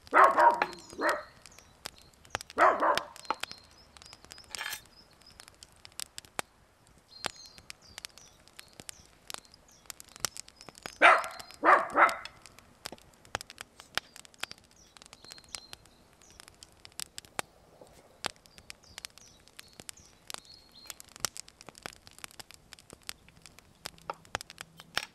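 Small dog barking in short sharp barks: two at the start, one a couple of seconds later and a pair about eleven seconds in. Light clicks and taps come in between.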